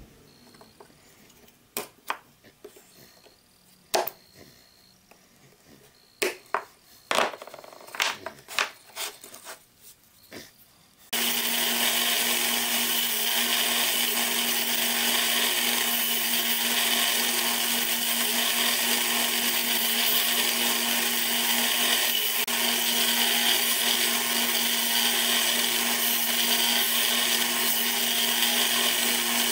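Scattered sharp knocks and clicks of a hand tool working a small wooden piece. About eleven seconds in, a small bench-top belt sander switches on abruptly and runs steadily with a constant hum.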